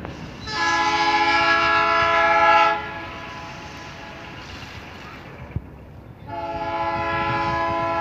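Diesel locomotive's multi-tone air horn sounding two long blasts from an approaching train: the first about two seconds long starting half a second in, the second starting about six seconds in.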